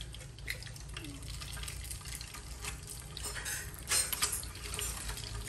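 Eggs sizzling in hot oil in a frying pan, a steady crackle with scattered small pops, over a low steady hum.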